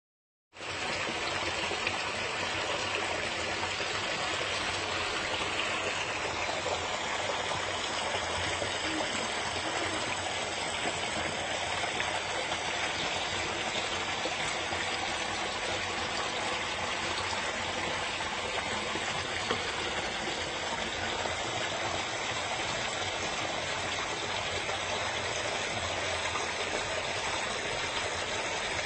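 Forest stream flowing, a steady even rush of water that fades in about half a second in.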